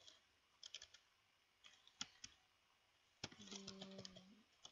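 Computer keyboard being typed on, a few quick keystrokes in short faint clusters, about half a second in and again about two seconds in.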